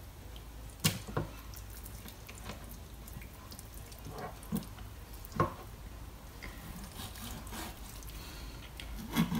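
A few faint, separate wet taps and clicks as a knife and a raw lemon sole are handled on a chopping board during filleting. Near the end the knife begins sawing through the fish.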